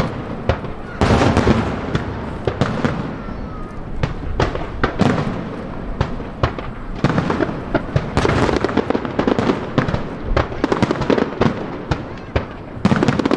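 Aerial fireworks display: shells bursting in rapid, irregular bangs and crackles, thickening into a dense barrage in the second half.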